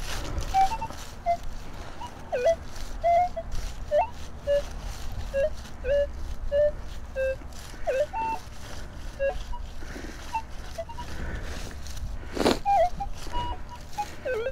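Minelab E-Trac metal detector giving a string of short beeps of changing pitch as the coil sweeps, some sliding sharply up or down. A brief louder thump or scrape comes near the end.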